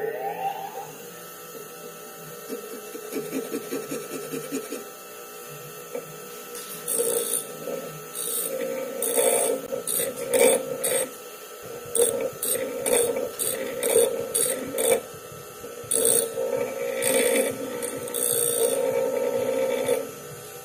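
Double-wheel bench grinder running with a steady hum while the edge of a steel plane iron is pressed against the stone in short repeated passes from about seven seconds in, each pass a harsh grinding hiss. The blade is held square to the wheel to grind a rounded (cambered) edge for a scrub plane, taking metal mostly off the corners.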